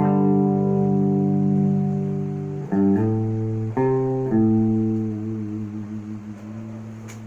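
Jackson KVXMG King V electric guitar playing chords: one chord held for almost three seconds, then a few quick chord changes, the last chord left ringing and slowly fading.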